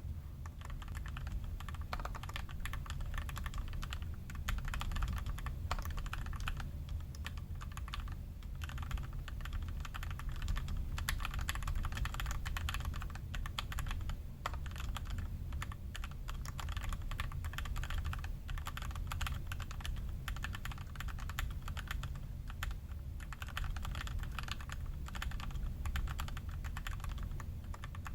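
Continuous typing on an iQunix F96 96% mechanical keyboard with Durock L2 clear linear switches seated in soldered mill-max hotswap sockets: a dense, even run of keystroke clicks with no long pauses.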